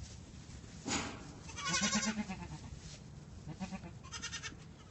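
Newborn goat kids bleating: a few short bleats, the longest and loudest about two seconds in and a higher-pitched one near the end.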